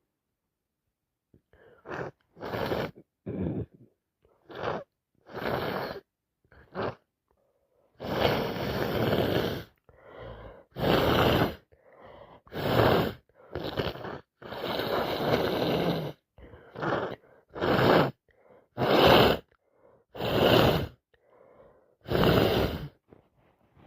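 A woman with a heavy cold sneezing again and again, with gasping in-breaths between the sneezes. The bursts come short and spaced at first, then longer and louder from about a third of the way in.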